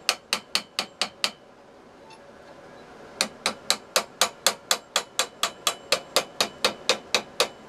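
Hand hammer striking the red-hot tip of a rebar spoon bit over a rounded steel bar, about four quick blows a second, forging the bit's curved cutting tip. The blows stop for about two seconds just after the first second, then pick up again.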